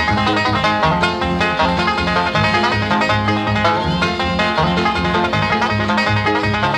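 Instrumental bluegrass music led by a picked banjo.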